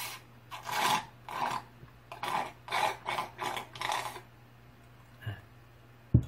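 Water sucked up through a drinking straw from a mug: about eight short, raspy slurps over four seconds as the last of the water is drawn up with air. A single sharp thump follows just after six seconds.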